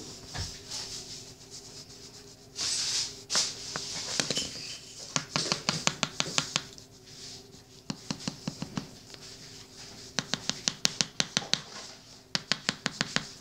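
Colouring strokes of a pen scratching back and forth on a colouring-book page, in several quick spells of about five or six strokes a second, with a couple of longer brushing swishes near the start.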